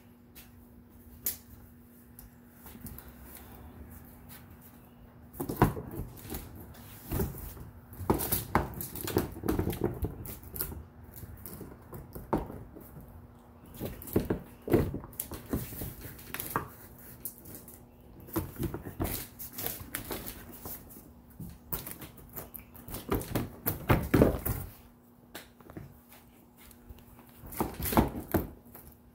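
Large plastic pirate ship prop being handled and fitted together: irregular clusters of knocks, bumps and scraping as the hull halves are pushed and squeezed into place. A faint steady hum runs underneath.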